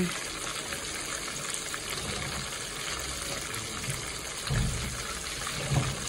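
Pieces of dove frying in hot oil in a pot: a steady sizzling hiss.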